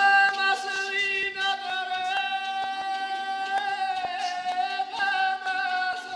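Man singing a Georgian folk song to his own panduri: one long, high note held through the whole stretch with a slight waver, over steady strummed strokes about twice a second.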